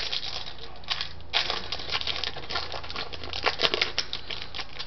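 Baseball trading cards being handled and flipped through by hand: irregular light rustles and clicks of card stock sliding and tapping.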